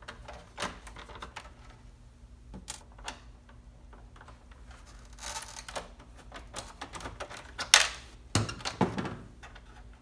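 Small clicks and taps of a screwdriver working screws out of a plastic Honda Accord headlight housing, with the housing being handled. There is a brief scraping rustle about five seconds in, and a sharp click near eight seconds followed by a few knocks.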